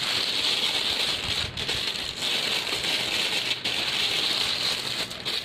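Plastic piping bag crinkling and rustling continuously as hands push a piping nozzle down inside it.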